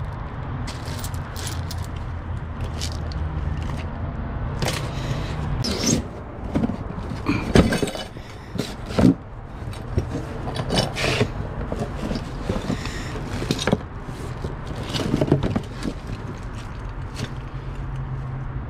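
Small items being rummaged through and handled: scraping and rubbing with irregular knocks and clicks, busiest in the middle, over a steady low hum.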